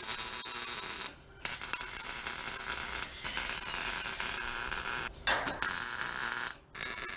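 Wire-feed welder arc running as a seam is welded on a Chevy C10 front crossmember, stopping briefly four times between short runs.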